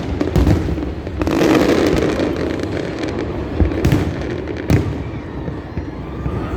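Aerial fireworks bursting: a dense crackle over the first couple of seconds, then several separate sharp bangs.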